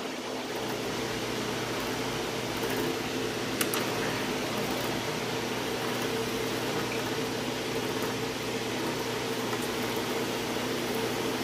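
Drill press running steadily while a piloted counterbore cuts into a hole in a 1/2-inch aluminium plate, a steady hum with one sharp tick about three and a half seconds in.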